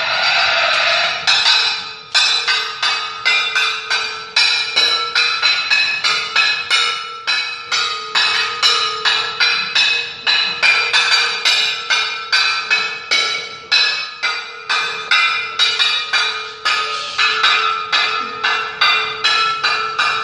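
Music of sharp struck notes that ring and fade, repeated about twice a second over a steady held tone; the struck pattern comes in about two seconds in.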